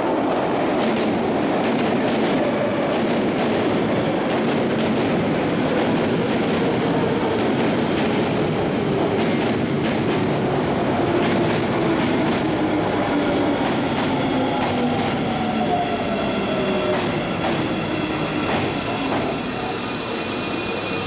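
Osaka Metro 21 series electric train, with refurbished traction equipment, pulling into a station and braking. Its wheels bang loudly over fishplated rail joints in a long run of sharp clacks, and a whine from the traction motors falls steadily in pitch as it slows.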